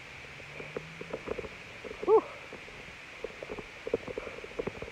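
Footsteps crunching along a dry dirt path, coming as irregular short knocks several times a second. About two seconds in there is one short, loud vocal sound.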